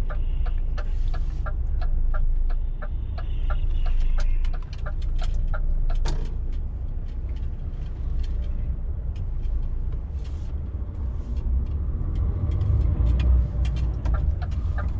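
DAF truck's diesel engine running at low speed in the cab while the truck creeps and turns, with a regular ticking of about three clicks a second, typical of the turn indicator relay, through roughly the first six seconds.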